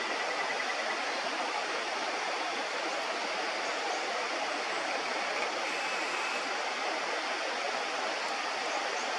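River water rushing steadily over the riverbed, an even, unbroken noise.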